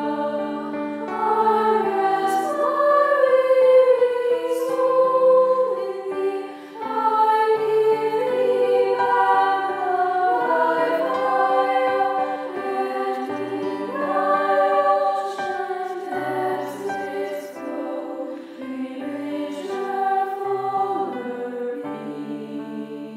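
School choir singing a slow choral piece, several voice parts overlapping in long held notes and phrases, mixed together from separately recorded singers.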